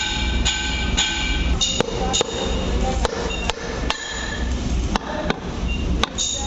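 Hammer blows on a metal drift, about a dozen sharp, irregular metallic strikes. Several of them leave the steel ring-gear housing of a Cat 120K2 motor grader's tandem drive ringing as parts are tapped into place during reassembly. A steady low hum runs underneath.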